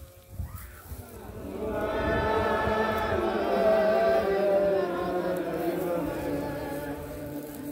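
A crowd of worshippers chanting together, many voices in unison, swelling after about a second and tailing off near the end.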